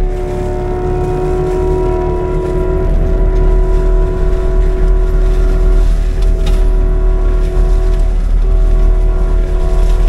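Skid steer with a forestry mulcher head running under load, heard from inside the cab: a deep engine rumble with a steady high whine from the machine as it grinds through brush.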